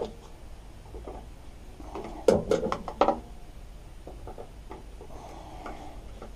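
Plastic air filter housing on a Tecumseh mower engine being pulled and worked by a gloved hand: scattered clicks and creaks, with a cluster of louder clicks and short creaks a little over two seconds in.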